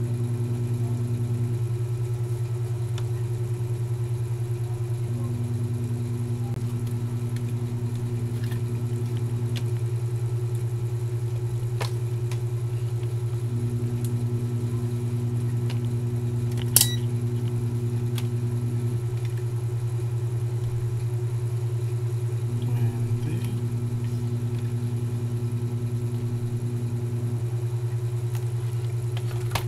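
Steady low machine hum, with a second tone that comes on for a few seconds and drops out again, repeating about four times. A single sharp click sounds about 17 seconds in, and a soft knock about 23 seconds in.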